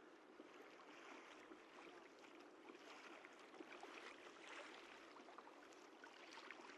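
Faint sea water lapping and trickling against a kayak hull, with small scattered ticks and splashes.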